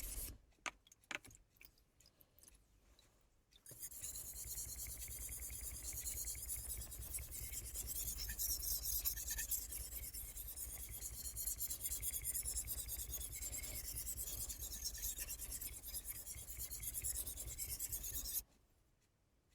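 Kai Shun VG-10 kitchen knife blade stroked back and forth on the 3000-grit side of a Solicut combination whetstone: a steady gritty rubbing. It pauses near the start with a few light clicks, resumes about four seconds in, and stops shortly before the end.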